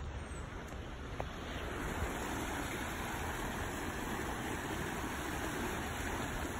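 Brook running high after overnight rain: a steady rush of water.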